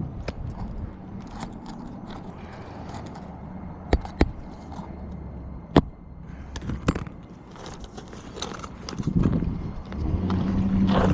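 Three sharp hammer strikes, two in quick succession about four seconds in and a third near six seconds, driving a roofing nail into asphalt shingles, with scraping and rustling of the shingles being handled in between. A low steady hum grows louder near the end.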